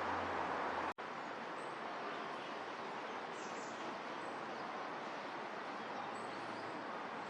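Steady outdoor background hiss, cut off by a brief dropout about a second in, with a few faint high bird chirps afterwards.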